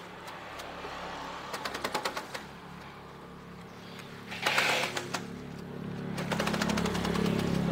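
Grass chopper turning and cutting grass: runs of rapid clicking as the blade rotor chops the stalks fed by the rollers, a short rush of noise about four and a half seconds in, and a low steady hum that swells toward the end.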